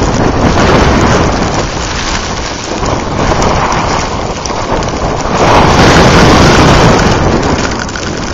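Blizzard wind buffeting the camera microphone in a loud, rumbling roar that swells and eases, gusting hardest from about five and a half seconds in.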